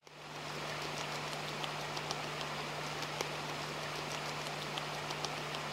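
Steady hiss of flowing river water, with scattered sharp little clicks and a low steady hum beneath.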